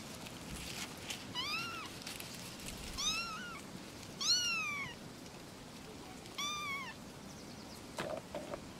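Young kittens mewing: four short, high-pitched mews a second or so apart, each rising and then falling in pitch.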